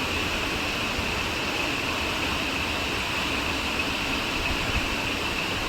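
Steady rushing of a waterfall, with a constant high-pitched whine over it.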